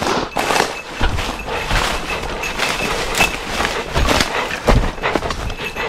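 Footsteps of a person running through dry leaf litter and twigs on a forest slope, a quick uneven crunching with branches brushing past.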